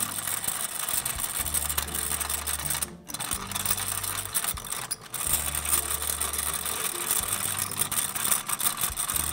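Homemade filament puller running: its motor-driven gears and rollers make a steady mechanical whir and rattle, cutting out briefly twice, about three and five seconds in.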